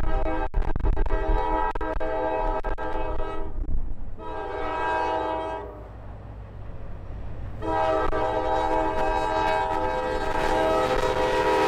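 Wheeling & Lake Erie diesel locomotive's air horn sounding a chord of several notes: a long blast, a shorter one about four seconds in, then another long blast from about eight seconds that carries on. The passing train's rumble and wheel noise build under it near the end.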